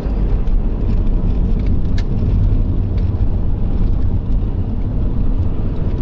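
A car driving along a highway at speed: a steady low rumble of engine and tyre noise.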